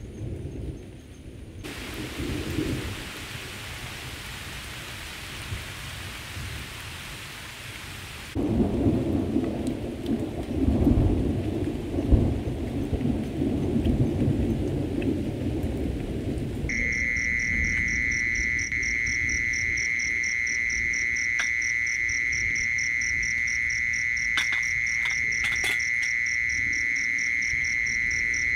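Rain falling with low rolling thunder, the thunder loudest for several seconds near the middle. Partway through the sound switches abruptly to a steady, high-pitched pulsing trill of insects such as crickets.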